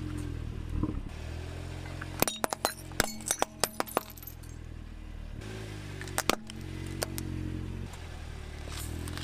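A car's engine idling as its tyre crushes upturned plastic ice-cream cups, which crack and shatter in a quick run of sharp snaps about two seconds in, with a few more snaps around six seconds.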